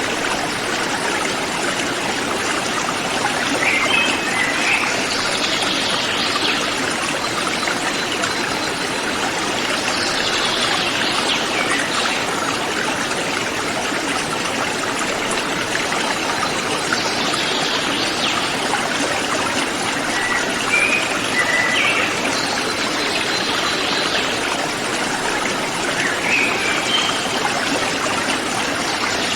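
Mountain river flowing steadily with a continuous rushing sound. A bird calls over it now and then, with falling calls and short chirps every few seconds.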